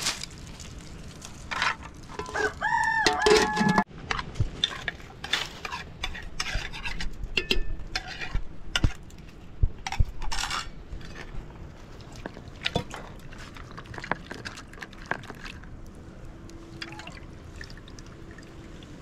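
A rooster crows once, about two seconds in, for under two seconds. After that come scattered clinks and knocks of china plates, spoons and a metal cooking pot being handled.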